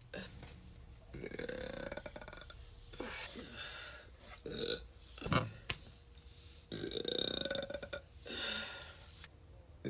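A person burping loudly several times in a row, some burps short and a couple drawn out for over a second.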